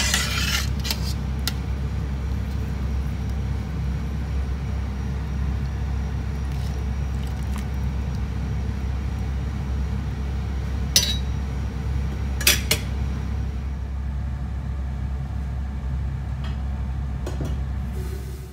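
Stainless-steel pot of sheep-trotter broth bubbling on the boil with a steady low rumble. A metal ladle clinks against the pot a few times, twice close together a little past the middle.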